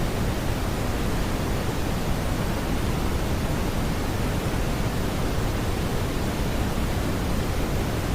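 Steady synthetic brown noise: an even, unchanging rumbling hiss, heaviest in the bass and softer in the treble.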